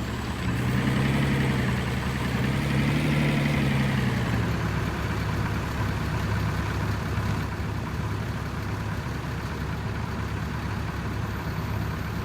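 Truck engine running, its pitch rising and falling twice in the first few seconds as it revs lightly, then settling into a steady idle.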